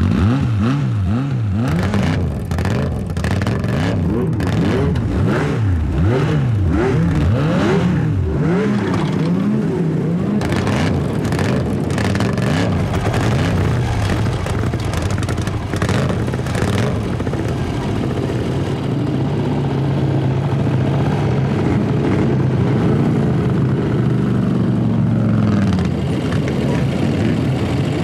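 Motorcycle engines revving over and over, several at once, their notes rising and falling, then settling into a steadier mass of engines running together as the bikes ride off.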